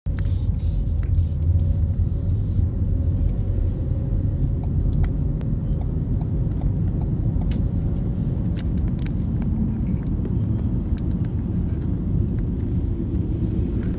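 Steady low rumble of road and engine noise inside a moving car's cabin, with a few faint light clicks.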